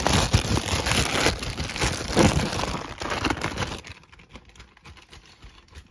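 Plastic mailer bag crinkling and rustling as hands rummage through it, loud for about four seconds, then dying down to a few faint rustles near the end.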